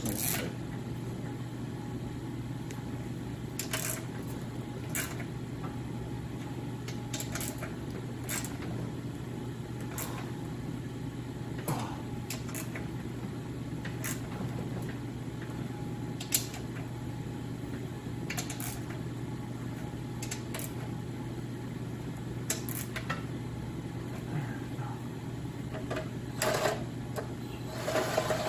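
Hand ratchet tightening bolts on top of a Polaris 440 two-stroke snowmobile engine: single sharp clicks every second or two over a steady low hum. Near the end, short whirs of a cordless power tool start up.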